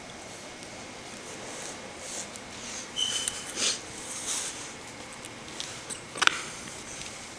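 Weimaraner puppy rummaging in a fabric toy box, sniffing and rustling among the toys, with a brief high squeak about three seconds in. A sharp knock a little after six seconds, the loudest sound, as the puppy bumps against the camera.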